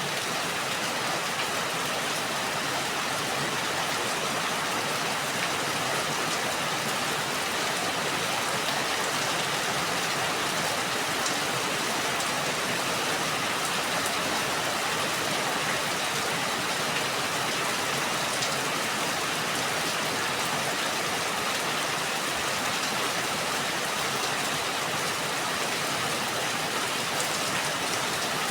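Steady rain falling, a dense even hiss of many drops hitting a surface.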